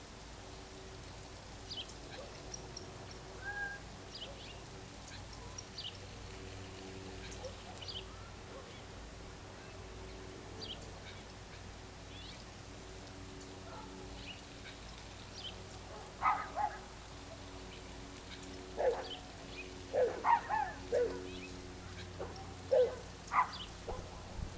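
Outdoor evening ambience: faint, short bird chirps scattered over a steady low hum. From about two-thirds of the way in comes a run of louder, short animal calls, several in a row.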